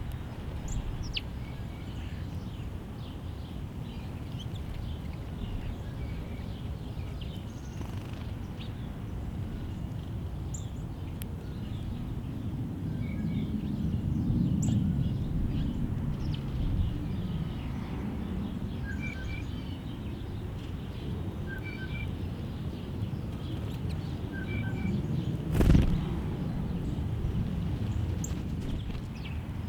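Small songbirds chirping and calling on and off over a steady low background rumble. A short two-note call repeats three times in the second half, and a single sharp knock comes near the end.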